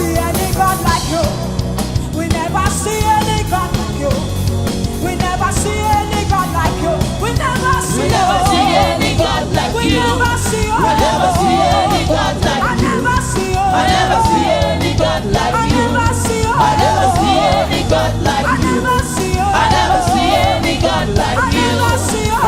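Gospel music with a band and singing voices; the singing stands out from about eight seconds in.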